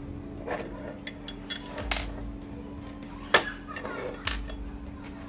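Metal parts of a cast-iron bench vise clinking and knocking as they are handled and fitted together during assembly, with two louder, sharper metallic clinks about two and three and a half seconds in.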